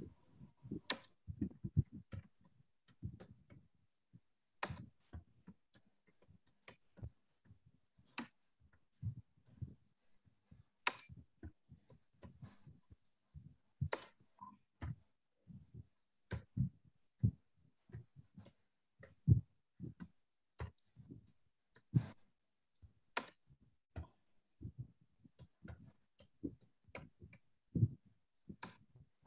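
Slow, uneven typing on a computer keyboard: single key clicks about one or two a second, some much louder than others.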